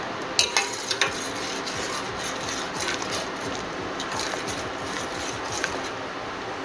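Sugar syrup for gulab jamun heating to a boil in a steel pot, a steady noise, while a metal slotted spoon stirs it and clinks against the pot several times, most sharply about half a second and a second in.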